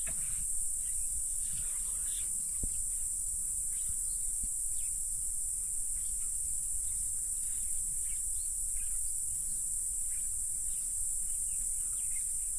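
Steady high-pitched drone of insects, with a low rumble underneath and faint scattered short chirps.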